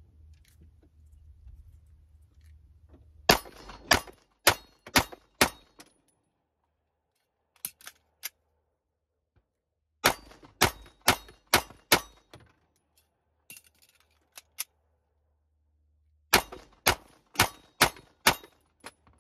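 Smith & Wesson M&P9 Metal Carry Comp 9mm pistol fired at steel targets in three strings of five shots, about half a second apart, with clangs from the steel. Between strings there are a few faint clicks of the magazine reloads.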